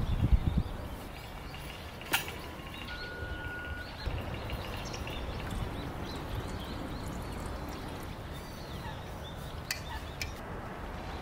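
Water poured from a bottle into a glass mason-jar still, over a steady outdoor background with faint bird chirps. A few knocks at the start as the jar's metal lid is handled, and two clicks near the end as the bottle is capped.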